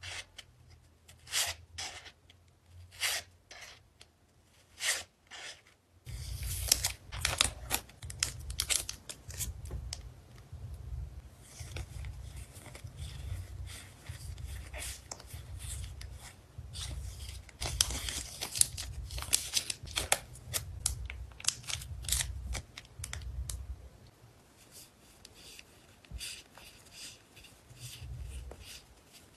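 Packing materials for photocards being handled: crisp plastic and paper crackles, then a long, busy stretch of rustling and tearing with low knocks of handling on the table, easing to lighter rustles near the end.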